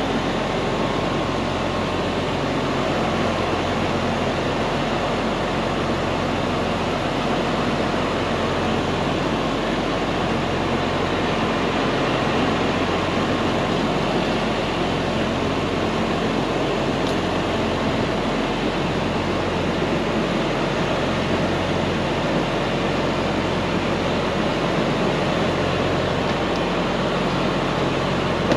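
A diesel engine runs steadily at idle: a constant low hum under an even rushing noise, unchanging throughout.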